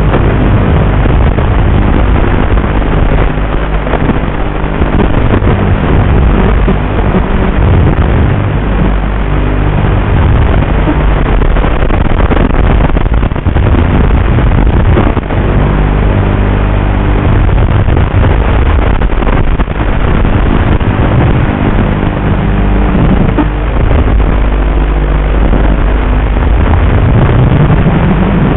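Eachine H8 micro quadcopter's motors buzzing under heavy hiss, their pitch shifting with the throttle and rising near the end.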